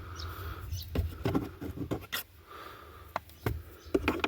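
Scattered light clicks and knocks of hard plastic as broken fragments are picked at inside a car dashboard's glovebox latch opening.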